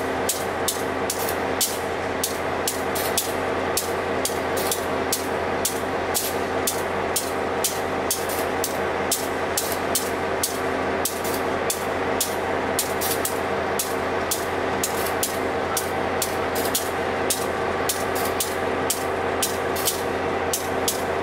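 Diesel-electric locomotive idling at a standstill, its engine giving a steady hum, with a sharp, regular ticking about twice a second over it.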